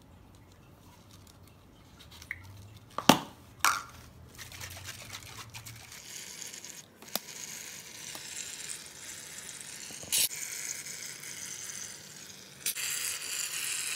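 Gillette Foam aerosol shaving cream hissing out of the can into a tub, in long spurts that are loudest near the end. Two sharp clicks come just before the spraying begins.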